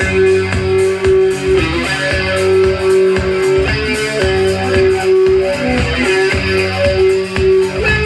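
Live rock band playing: an electric guitar melody of held notes over bass guitar and a steady drum beat.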